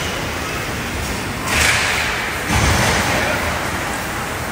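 Ice hockey play heard from rinkside over a steady rink hum. About a second and a half in, skate blades scrape hard on the ice for about a second. Then a thud against the boards follows.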